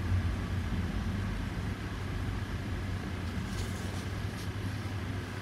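Steady low background hum with faint room noise. A few faint scratches of a gel pen drawing on tan paper come a little past the middle.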